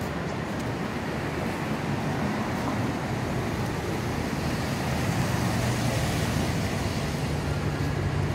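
Steady city street traffic noise, with a low engine hum growing louder over the last few seconds.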